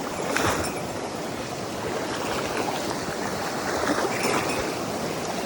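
Mountain stream water rushing steadily, with a brief splash or knock about half a second in.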